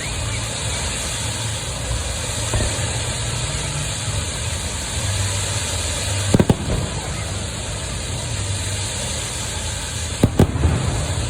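Fireworks going off: a quick pair of sharp bangs about six seconds in and another close pair near the end, over a steady background din.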